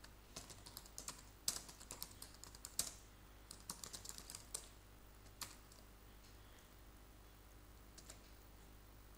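Computer keyboard being typed on: a quick run of keystrokes for about the first four and a half seconds, then a couple of single key presses.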